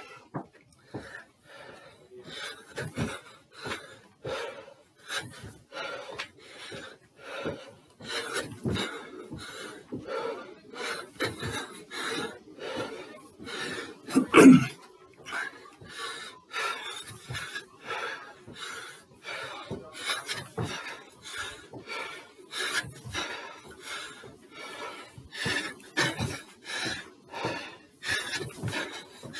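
A man panting hard in a steady rhythm while doing repeated box jumps onto a stair step, with his feet landing at each jump. One stroke about halfway through is louder than the rest.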